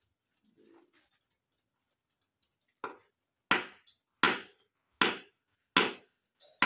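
Club hammer striking a wooden block laid on a cylinder liner, pressing the turned-around liner down into an Isuzu Panther engine block: a light tap about three seconds in, then five heavy, evenly spaced blows, about one every three-quarters of a second.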